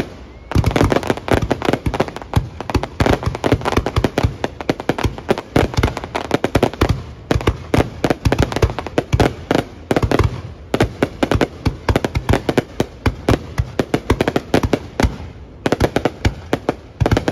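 Fireworks display: a dense, loud run of bangs and crackles, many reports a second, with short lulls just after the start, about ten seconds in, and about fifteen seconds in.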